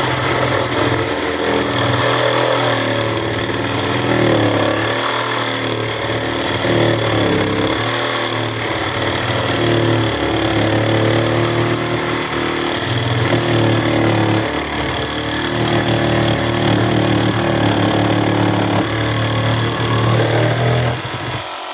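Bauer 20-volt cordless reciprocating saw with a wood-and-nail blade cutting through a 4x4 wooden post: the motor runs steadily under load, its pitch wavering as the blade works through the wood, then stops suddenly at the end.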